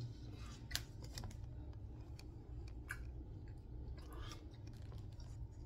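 Faint handling noise from a phone being tilted and moved: a few soft, scattered clicks and rustles over a low steady hum.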